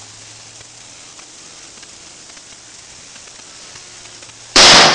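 A single shot from an AR-50 .50 BMG rifle about four and a half seconds in, very loud and sudden, with a ringing echo trailing off. Before it there is only a steady faint hiss.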